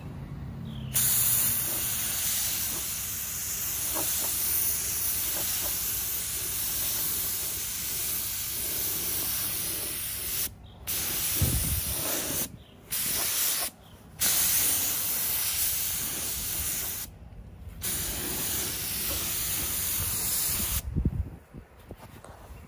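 Gravity-feed compressed-air paint spray gun spraying single-stage paint: a steady hiss of air and atomised paint that starts about a second in, with four short breaks where the trigger is released, and stops near the end.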